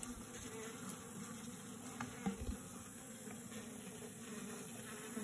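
Honey bees in an open hive box buzzing in a steady, quiet hum, with a couple of faint clicks about two seconds in.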